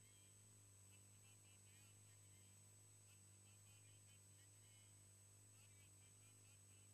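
Near silence: a faint, steady electrical hum, with faint short chirps now and then.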